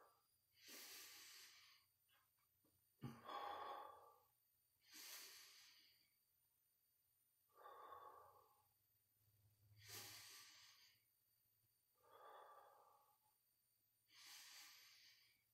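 A man breathing heavily and steadily while holding a plank: about a breath every two seconds, in and out breaths alternating, the strain of a long hold.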